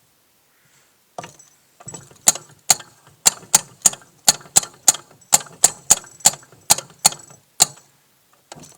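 Homemade ratchet wheel unlockers on a walk-behind tractor clicking as the wheel is turned with the gearbox in gear: the pawl snapping over the ratchet teeth so the wheel freewheels. The clicks are sharp and regular, about three a second, starting about a second in and stopping near the end.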